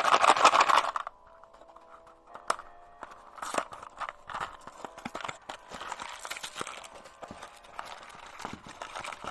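Plastic LEGO packaging rustling loudly for about a second, then scattered light clicks and rattles of LEGO pieces being handled, over faint steady background tones.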